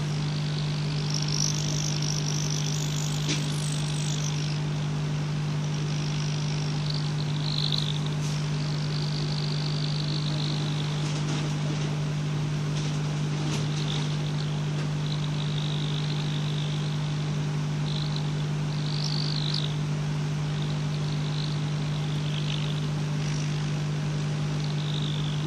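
Hot-air rework station heating a phone circuit board from underneath to reflow the solder for a new charging socket: a steady low hum from its blower, with a higher hiss that comes and goes.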